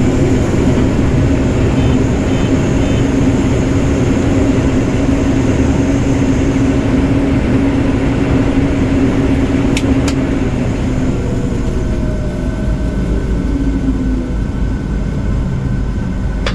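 Combine harvester running steadily while harvesting corn, a dense machine drone with a strong steady hum. About eleven seconds in the hum fades and the sound changes to a lower rumble, with two sharp clicks just before.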